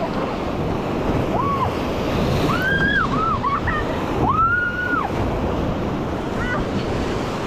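Rushing river water with wind buffeting the microphone, steady throughout. Several drawn-out high calls from voices rise and fall over it, about a second in, around three seconds in and again about four and a half seconds in.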